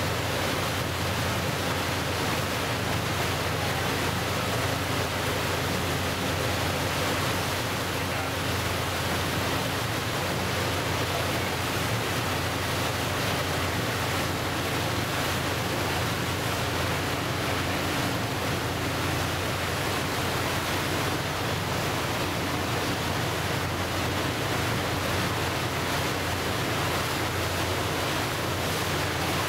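Choppy waves washing and splashing at the shoreline, mixed with wind rushing over the microphone: a steady, even roar with no breaks.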